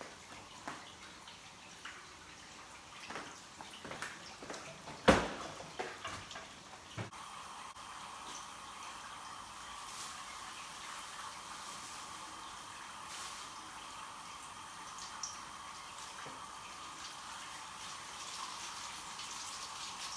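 Potato patties frying in hot oil in a pan, sizzling steadily from about seven seconds in. Before that come a few light clicks and one sharp knock about five seconds in.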